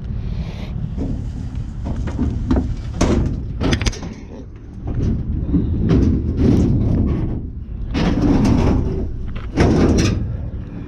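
Scrap being shifted and loaded: a series of clanks, bangs and thuds, the loudest about three seconds in and again near ten seconds, over a steady low rumble.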